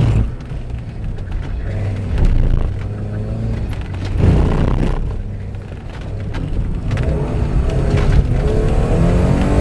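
Porsche 944 2.5's naturally aspirated four-cylinder engine heard from inside the cabin. The revs drop sharply off the throttle at the start and stay low through a slow corner, with a brief pick-up about four seconds in. Over the last few seconds it accelerates with rising revs.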